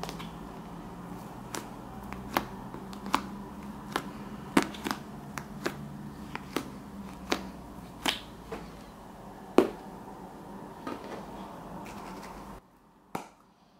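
Fluffy slime being squeezed and stretched by hand, giving sharp pops and clicks about once or twice a second over a low steady hum. The sound cuts off abruptly near the end.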